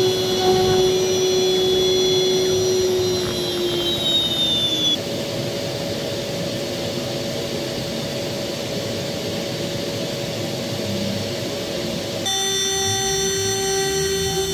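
Power-tool motor whining steadily over a noisy hiss. Its pitch drops about four seconds in, and the sound changes abruptly twice.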